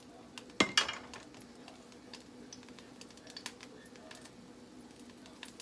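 Hot cooking oil in a frying pan starting to crackle, with sparse light ticks over a faint steady hum. A couple of sharper clicks come just under a second in.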